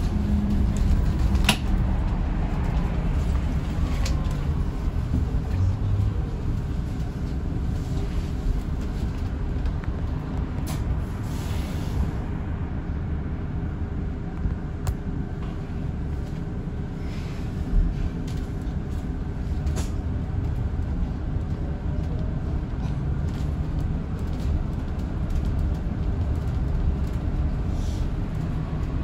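Inside an Alexander Dennis Enviro400EV battery-electric double-decker bus: a steady low rumble with a faint even hum. Sharp clicks and rattles from the bodywork come every few seconds.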